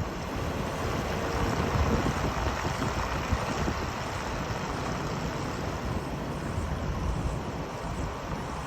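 Steady road and wind noise of a moving vehicle: a low rumble with a hiss above it, level throughout.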